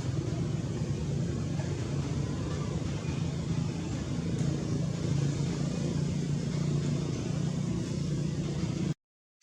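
A steady low engine drone with a constant hiss over it, like a motor vehicle running. It cuts off abruptly near the end.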